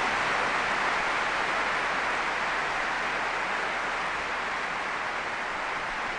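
Large audience applauding, a dense, steady wash of clapping.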